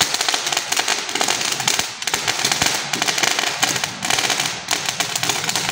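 A string of firecrackers going off in a rapid, continuous run of sharp pops.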